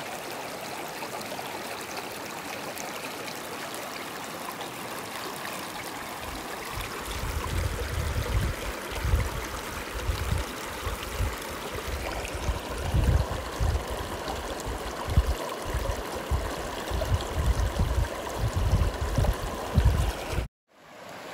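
Rushing water of a shallow, rocky mountain river running steadily over stones. From about six seconds in there is irregular low rumbling, and the sound cuts out briefly near the end.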